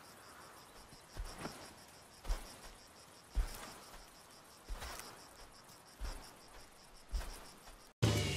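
Crickets chirping in a steady, finely pulsing high trill, with a soft low thud about once a second: the slow footfalls of a walking African bush elephant on dry ground. The sound cuts out abruptly near the end.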